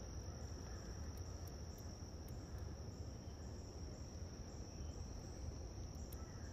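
Insects in a faint, steady high-pitched drone that holds one pitch without a break, over a low steady rumble.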